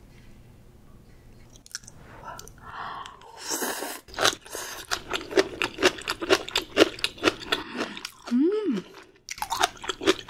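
Close-miked eating of spicy stir-fried octopus wrapped in bean sprouts: a bite, then steady crunchy chewing at about three chews a second. About eight seconds in, the eater gives a short hum that rises and falls.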